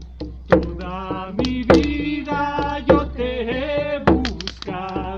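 Vocable chant sung over a slow, steady drum beat, about one strike every 1.2 seconds.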